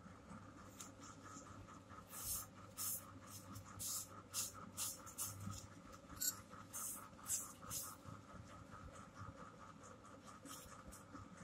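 Cloth being handled: a run of short scratchy rustling rubs, roughly two a second, over a faint steady hum.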